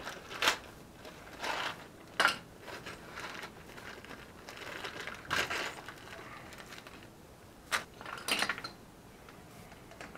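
Small metal hardware (new nuts, bolts and washers for a spring perch) being handled: a scatter of short clinks and rattles with some rustling, the sharpest near the start, around two seconds, and a close pair near eight seconds.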